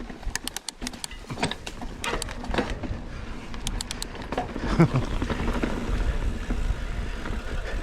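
Ibis Ripmo AF mountain bike rolling down a dirt trail: tyres crunching over gravel and rocks, with sharp clicks and rattles from the bike. Wind rumble on the helmet camera's microphone grows louder about two seconds in as the bike picks up speed.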